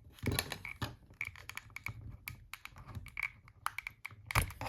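Irregular small plastic clicks, creaks and scrapes as the Siemens C62 phone's housing is worked at by hand to separate it; it does not come apart. Louder knocks come about a third of a second in and again near the end.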